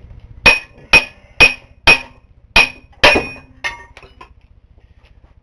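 Hammer striking metal parts of a Briggs & Stratton small engine during disassembly: six sharp, ringing blows about half a second apart, then two lighter taps.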